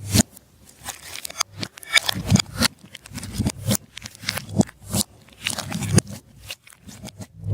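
Slime being kneaded and stretched by hand, making irregular sticky pops, crackles and squelches several times a second.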